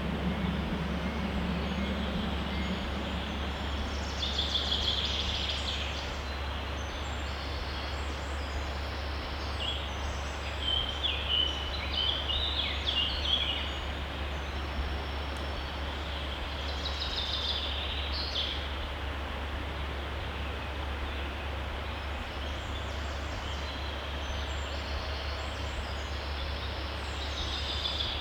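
A stream flowing steadily, with songbirds chirping in short phrases now and then over it. A low rumble fades out in the first few seconds.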